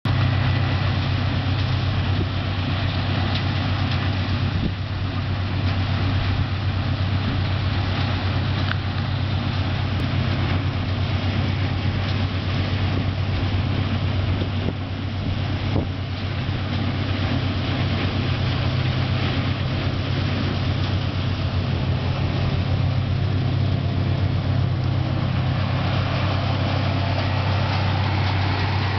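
Ploeger EDP 530 self-propelled pea harvester running steadily as it harvests: a steady low engine drone with a broad rushing noise from the machine over it.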